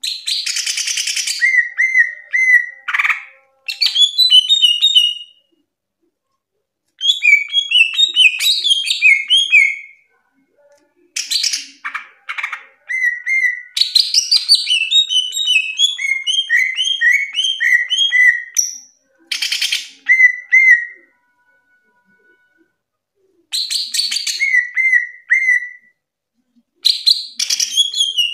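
Caged cucak ijo (green leafbird) singing loudly in repeated phrases of quick whistled and chirping notes, several sliding down in pitch, some phrases opening with a harsh rasping note, with short pauses of a second or two between phrases.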